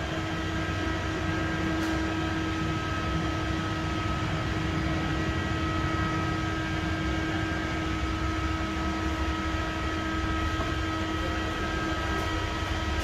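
Steady mechanical hum with a low rumble and a few constant tones.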